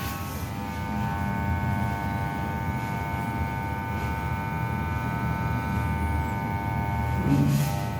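Electric hair clipper running with a steady, even-pitched buzz. A brief louder sound comes near the end.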